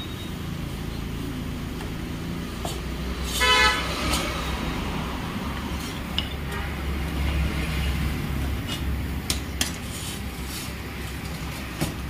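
A vehicle horn toots once, briefly, about three and a half seconds in, over a steady low rumble. Scattered light metallic clinks come from a tyre lever against a scooter's steel wheel rim as the new tyre is worked on.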